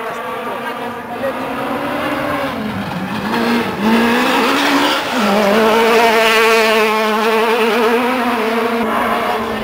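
WRC rally car's turbocharged four-cylinder engine running hard at high revs. Its note climbs and drops sharply at gear changes about two and a half and five seconds in, then holds high.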